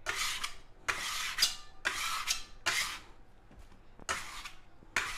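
Metal bench knife scraping along the countertop as it pushes and rounds sourdough in pre-shaping: about five short rasping strokes, roughly one a second.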